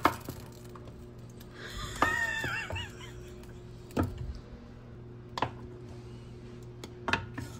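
A wooden spoon knocks against a pan several times as it works at a block of frozen shrimp in Alfredo sauce, over a steady low hum. A brief wavering high tone sounds about two seconds in.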